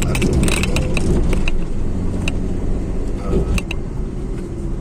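Steady low road and engine rumble inside a moving car's cabin, with light metallic rattling clicks that come thick in the first second and a half and then only now and then.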